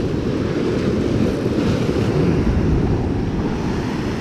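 Wind buffeting the microphone, a steady low rumble, over the wash of surf breaking against the rocks.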